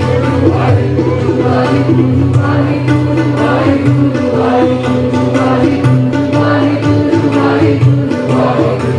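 Devotional Sikh simran music: a steady low drone under a melody, with regular percussion strokes.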